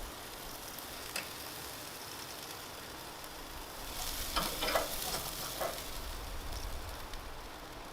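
Chicken thighs sizzling on a barbecue grill in a steady hiss, with a click about a second in and a few clicks and scrapes between about four and six seconds in.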